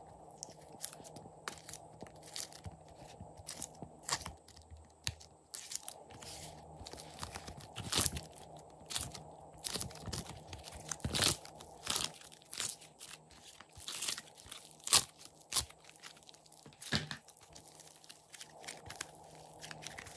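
Slime being peeled off a plastic mold and stretched and twisted by hand: irregular sticky clicks and pops, a few much louder than the rest.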